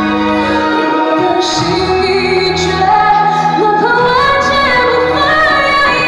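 A woman sings live into a handheld microphone over instrumental accompaniment, holding long notes. Her voice climbs higher about four seconds in.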